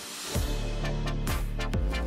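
Electronic background music: a heavy bass comes in about half a second in, with notes that slide down in pitch, over a steady beat.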